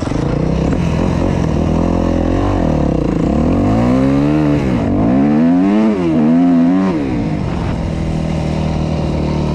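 Yamaha YZ250F dirt bike's single-cylinder four-stroke engine running at a steady low note, then revving up and down several times in rising and falling sweeps from about two seconds in, before settling back to a steady note near the end.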